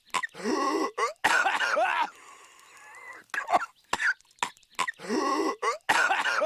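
Patrick Star's cartoon voice coughing in a loop: a couple of short, sharp coughs, then a longer, rough hacking fit. The same sequence starts over about halfway through.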